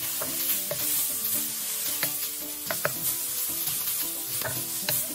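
Chopped ginger, lemongrass, shallots and garlic sizzling in hot oil in a stainless steel wok while being stir-fried with a wooden spatula. Occasional sharp knocks and scrapes come as the spatula hits the pan.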